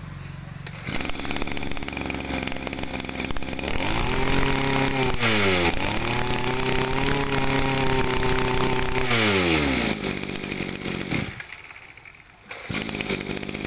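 Echo 23 cc two-stroke brush cutter engine starting up and idling, then revved to high speed twice and let back down to idle. Its sound dies down briefly about eleven seconds in and runs again near the end.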